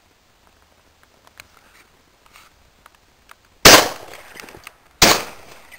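Two shotgun shots, about a second and a half apart, in the last two seconds, each a loud crack that trails off over about half a second.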